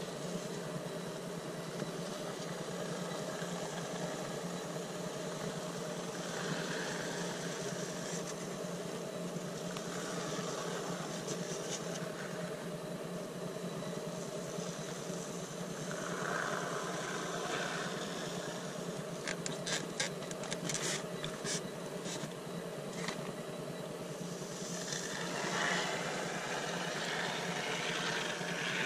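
Great Stuff Big Gap Filler expanding spray foam hissing from its can in short spurts as it is run into the gaps around a foam-board vent cover. Under it a steady low mechanical hum continues, and about two-thirds of the way through there is a quick run of sharp clicks.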